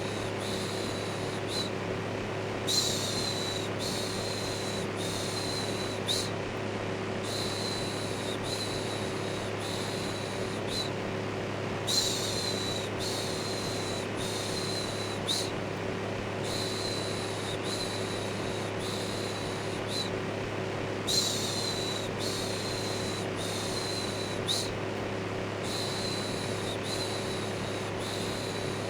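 Electric fan running steadily with a low hum, overlaid by rhythmic 'shhh' shushing: short hissing shushes about every two-thirds of a second, with a louder one every few seconds, in a repeating pattern.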